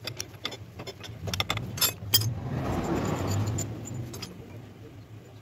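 Metal tools and engine parts clinking: a socket and spanner on the cam gear bolt, then the camshaft with its gear being lifted out of a CG125 engine. A passing vehicle swells up and fades away in the middle.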